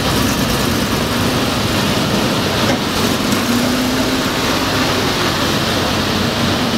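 Engine of a WWII-vintage Marine LVT amphibious tractor running steadily as the vehicle moves through the water.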